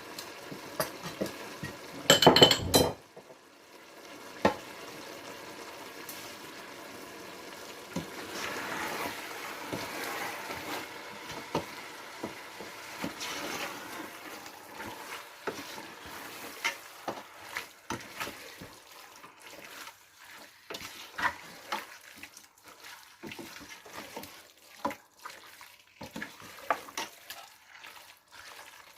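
A spoon stirring a chicken and masala mixture in a cooking pot: scraping and small clinks of the spoon against the pot over a faint sizzle, with one loud clatter about two seconds in.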